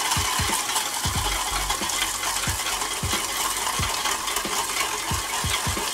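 Wire whisk beating a butter-and-cream beurre blanc sauce in a steel saucepan, with irregular soft knocks of the whisk against the pan over a steady sizzling hiss from the hot pans.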